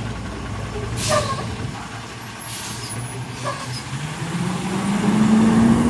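Recycling garbage truck's diesel engine running at idle, with a brief hiss of air about a second in; from about four seconds the engine speeds up, its note rising steadily and getting louder.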